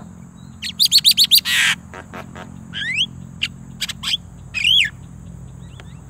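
Mynas calling. About a second in there is a quick run of five or six chirps and a harsh screech, followed by scattered whistled notes, some of them rising.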